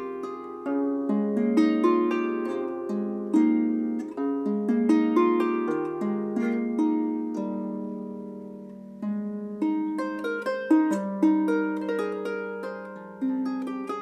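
Lever harp played solo: plucked notes and chords that ring and die away, with one chord left to fade for about two seconds around the middle before the playing picks up again.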